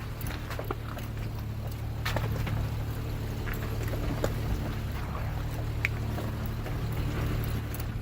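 Off-road vehicle engine running steadily at low revs as it crawls down a rocky trail, with scattered clicks and cracks of tyres rolling over loose rock.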